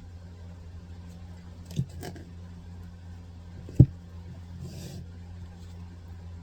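A steady low hum, like a distant engine or traffic, with two sharp knocks: a small one about two seconds in and a louder one nearly two seconds later.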